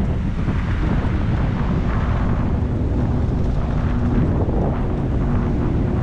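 Wind buffeting the microphone of a camera riding on a moving bicycle: a steady, loud low rumble.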